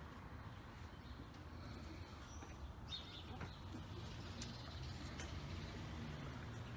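Quiet outdoor ambience with a steady low rumble and a few faint bird chirps about two to three seconds in.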